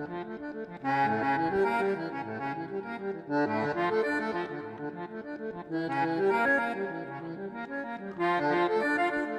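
Background music with a melodic instrumental lead, in phrases that swell about every two and a half seconds.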